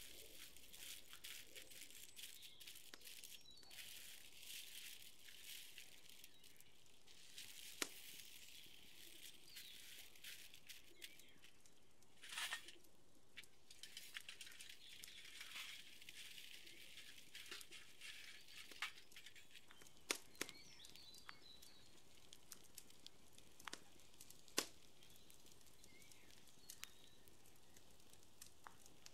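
Quiet crinkling of aluminium foil and scattered small crackles and clicks of hot charcoal over a faint hiss, with a few sharper snaps here and there.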